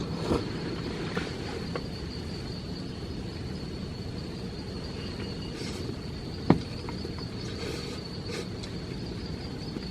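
Steady rain with crickets trilling continuously on one high pitch. Scattered drops tap now and then, with one sharp tap about six and a half seconds in.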